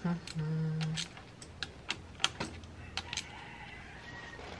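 A rooster crows briefly in the first second. Then come scattered light clicks and taps of a hand tool on the pit bike's engine.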